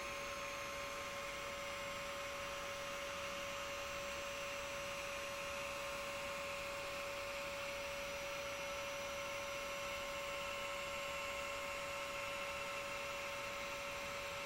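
Laser engraver running with a steady electrical hum and a constant whine over a soft hiss, with no stepping or clicking.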